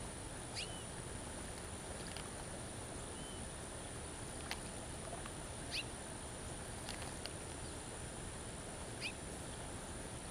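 Water drops from a drip emitter falling into a birdbath, a short high plink about once a second, over a steady outdoor hiss.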